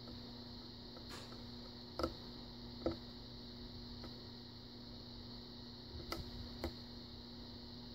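Faint, scattered clicks of a steel hook pick working the pin stacks of a brass pin-tumbler lock cylinder during single pin picking, about five clicks spread across several seconds over a steady low hum.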